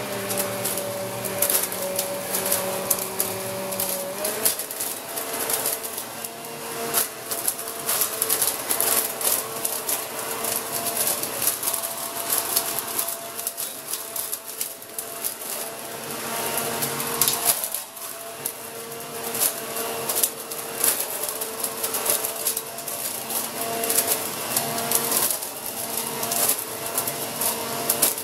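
Corded electric leaf vacuum-mulcher running with a steady motor whine while its tube sucks up dry leaves. Constant crackling and clattering comes from the leaves being shredded on their way into the bag. The whine drops in pitch about four seconds in.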